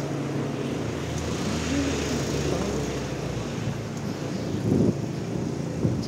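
Steady engine hum of street traffic, with two dull thumps near the end.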